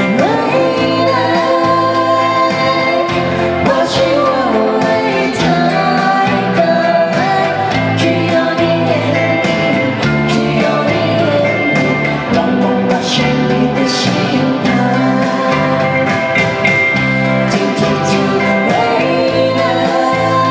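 Live band playing a song: singing over electric and acoustic guitars, with a steady pulsing bass line.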